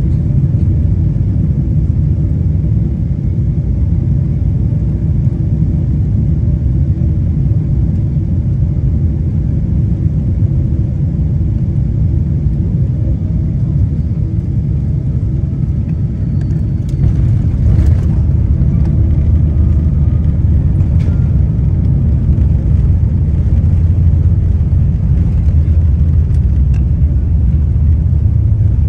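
Boeing 777 cabin noise during landing: a steady low rumble of jet engines and airflow on short final. A little past halfway a brief jolt marks the touchdown, and after it a heavier low rumble of the wheels rolling down the runway.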